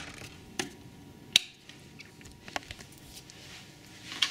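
A few sharp knocks and clicks from things being handled on a counter, one much louder than the rest about a second and a half in.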